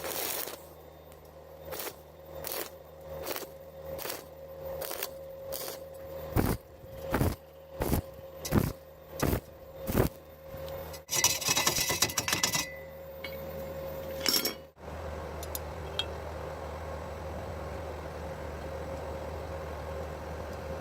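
Welding arc on thin square tube struck in short, evenly spaced bursts, about one every 0.7 s and growing louder, then a longer crackling run of about two seconds, and one more short burst.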